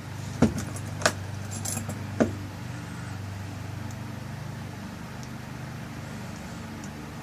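Small metal clicks and clinks of a lock cylinder and its tail piece being handled as the tail piece is screwed back on, four sharp ones in the first two and a half seconds. A steady low hum runs underneath.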